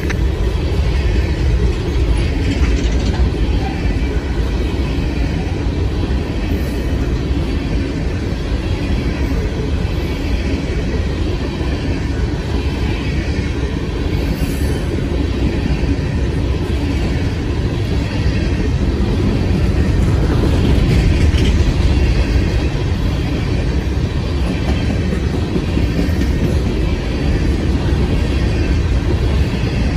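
Freight train of open-top hopper cars rolling past at close range: a steady rumble and rattle of steel wheels on the rails.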